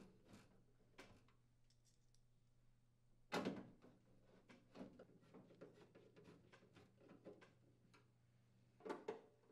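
Hand screwdriver driving screws into a microwave's sheet-metal cabinet: faint scattered clicks and scrapes of the tip and screws against metal, with a louder knock about three seconds in and another near the end.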